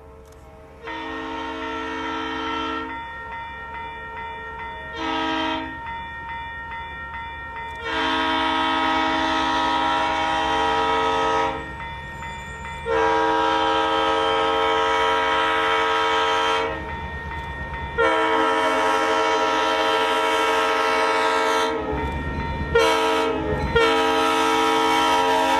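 Locomotive air horn sounding a chord in a series of blasts, some short and several about three to four seconds long, over a steady low rumble of the train.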